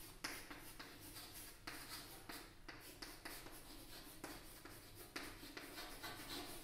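Chalk writing on a blackboard: a faint run of quick scratches and taps, several a second, as each letter is stroked out.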